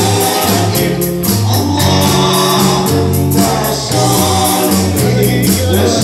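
Live band music amplified through PA speakers: electric guitars over a moving bass line and an electronic drum kit keeping a steady beat, with a voice singing a sholawat (devotional song praising the Prophet Muhammad).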